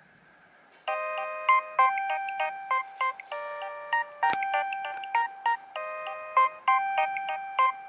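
Nokia 3100 mobile phone playing one of its original polyphonic ringtones, starting about a second in: a repeating melody played in chords, with short accented notes on top.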